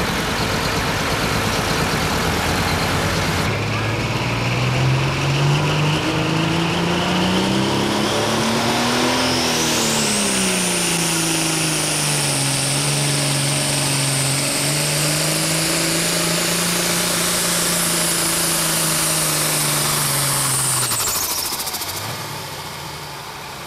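Pro stock pulling tractor's turbocharged diesel engine under full load during a pull. The engine pitch climbs, peaks, then settles and holds steady as the tractor bogs against the sled, with a high turbocharger whistle climbing and holding over it. Near the end both drop away as the engine is let off. Another tractor's engine is running at the start.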